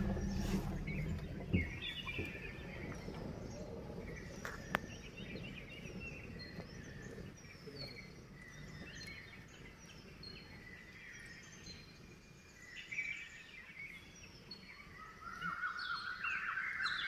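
Wild forest birds chirping and calling over quiet woodland background, the calls crowding together and getting louder near the end. A vehicle engine rumbles low at the very start, then fades out.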